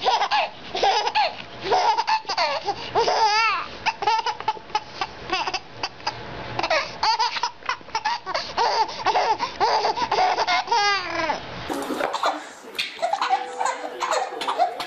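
A baby laughing hard, over and over in quick rising and falling bursts. About twelve seconds in, another baby's quieter laughter takes over.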